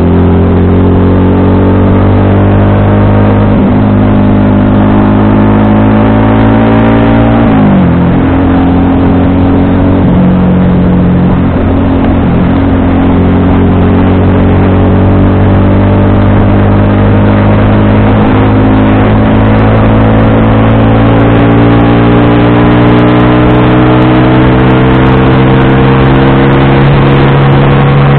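FKM Victorino 250i V-twin motorcycle engine pulling under way. The revs climb slowly, fall sharply at a gear change about seven seconds in, then climb again in a long steady pull.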